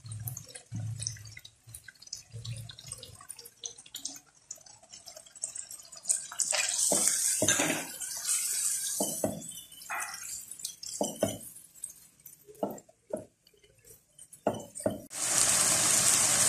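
Chicken pieces frying in oil in a nonstick wok: light crackling at first, then a silicone spatula stirring and knocking against the pan as yogurt is mixed in, with sizzling that comes and goes. Near the end a loud, steady sizzle starts suddenly.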